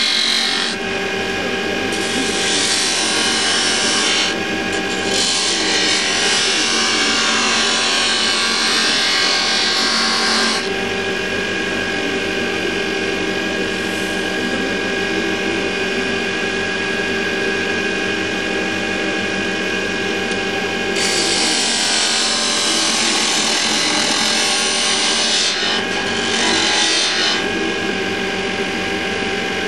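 Axminster wood lathe running with a steady motor hum while a thin steel tool cuts the spinning wooden candlestick, a rough scraping hiss. The cutting noise stops briefly three times and eases for about ten seconds in the middle.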